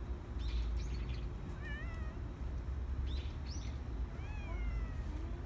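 A cat meowing twice: a short wavering meow a little under two seconds in, then a longer meow falling in pitch about four seconds in. Brief high chirps come and go over a steady low rumble.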